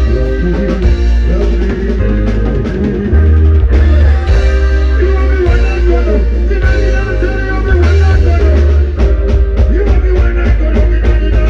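Loud band music with heavy, pulsing bass and a drum kit.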